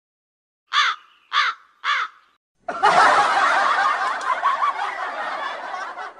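Three short calls that rise then fall, about half a second apart, then a sound-effect burst of laughter lasting about three seconds that cuts off abruptly.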